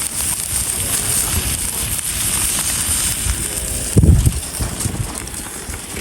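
Wind buffeting the microphone in a steady low rumble over a crackling campfire, with one loud thump about four seconds in.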